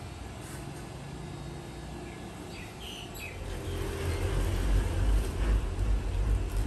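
A few short bird chirps about two and a half seconds in, over a low rumble that grows louder in the second half.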